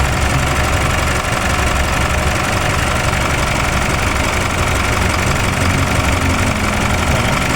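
Isuzu Mu-X turbodiesel engine idling steadily under the open bonnet. The vehicle is being checked for a loud turbo noise whose cause has not been found.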